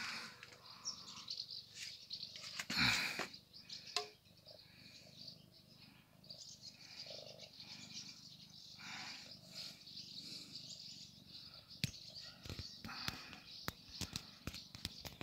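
Faint birds chirping in the background, with scattered soft clicks and one brief louder noise about three seconds in.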